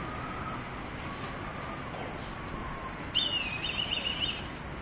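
A bird calls once about three seconds in: a quick, high chattering run of notes lasting about a second, over a steady outdoor background noise.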